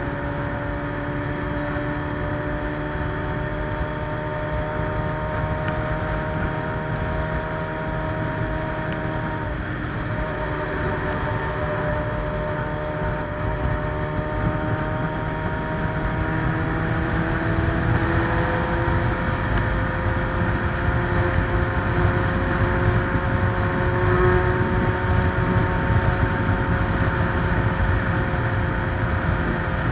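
Suzuki Bandit 600's carbureted four-cylinder engine through a straight-pipe sport exhaust, running at a steady cruising pace with wind and road noise. The engine note shifts slightly about ten seconds in, then rises a little and gets somewhat louder past the middle.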